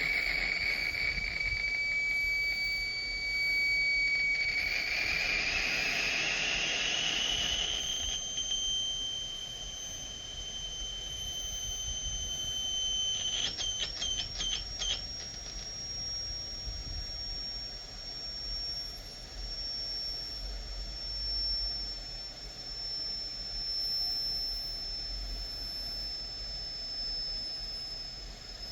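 High-pitched electronic whistling from a voice recorder with an amplified microphone. A steady tone glides up to a higher pitch, then a quick run of about six chirps comes roughly halfway through. After that a single high whistle holds, slowly sinking in pitch, over a low hum and hiss.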